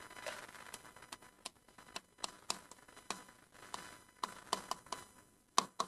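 Faint, irregular light taps and clicks of a stylus on an interactive touchscreen board, with short scratchy strokes as a word is written; the firmest taps come near the end.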